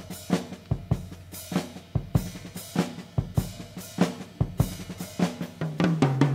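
Drum kit playing alone in a steady groove: snare, bass drum, hi-hat and cymbal hits. Pitched bass notes join near the end as the band comes in.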